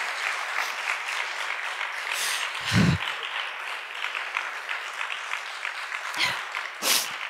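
Audience applauding steadily, with a short low thump about three seconds in.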